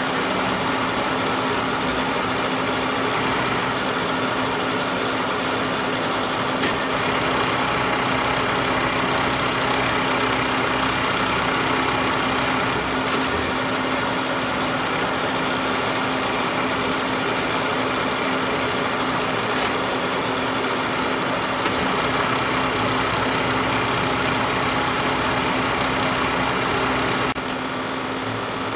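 Manual milling machine running, its end mill cutting along an aluminium block: a steady hiss of cutting over an even motor hum. The level drops slightly about a second before the end.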